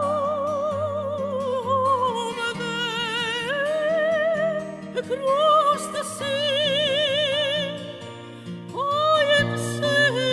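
Music: an operatic soprano singing long notes with wide vibrato over a soft instrumental accompaniment, breaking off briefly twice.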